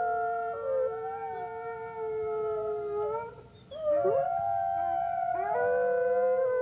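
A small pack of wolves howling together, several long overlapping howls held at different pitches, each sliding at its start or end. The chorus thins briefly near the middle, then new howls rise and carry on.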